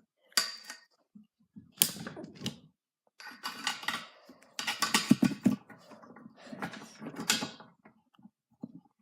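Quad bike engine being cranked over in several attempts of about a second each, with short pauses between them, never catching and running: the engine fails to start.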